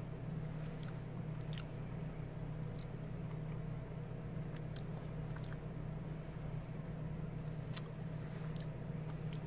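A hard candy cane being chewed, giving faint scattered crunches and clicks about once a second or less, over a steady low hum.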